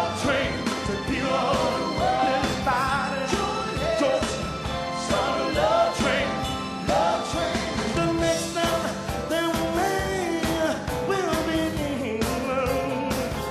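Live soul band playing, with a man singing lead into a handheld microphone over a steady beat of drums and cymbals.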